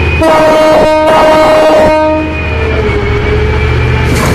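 A loud horn blasting twice, a short blast then a longer one, over a steady low hum.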